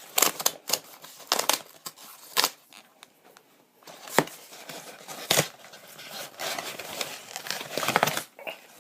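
Packaging being handled and torn open: irregular crinkling and tearing with sharp snaps, loudest a little after four seconds and again after five, and a longer rustle near the end.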